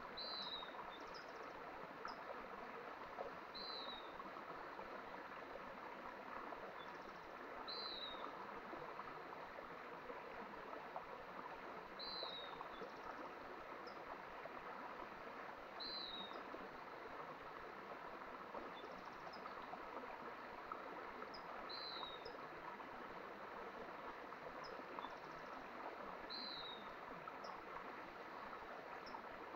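A mountain stream running steadily, with a bird repeating a short falling call about every four seconds and a few faint, higher chirps in between.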